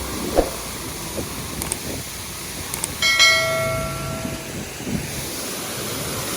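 Steady rushing background noise, with a single sharp strike about three seconds in that rings on as a bell-like metallic tone and fades over about a second and a half.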